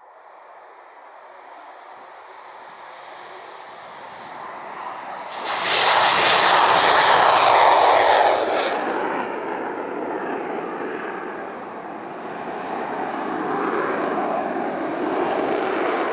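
Eurofighter Typhoon's twin Eurojet EJ200 turbofans at takeoff power. The jet noise grows steadily, then jumps sharply louder and hissier about five seconds in and stays at its loudest for about three seconds. It then eases and builds again toward the end.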